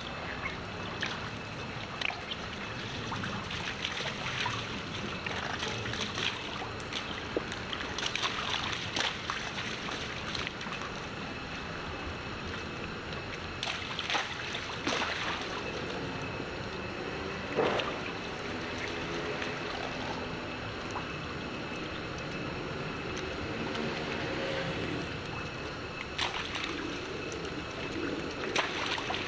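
Shallow rainwater puddle splashing and sloshing as macaques wade, scamper and jump through it: a steady trickle of water with irregular sharp splashes.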